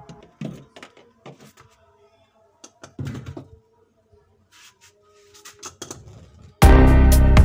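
Scattered light knocks, clicks and a short scraping rattle from refrigerator parts being handled and pried apart. Loud music comes in suddenly near the end.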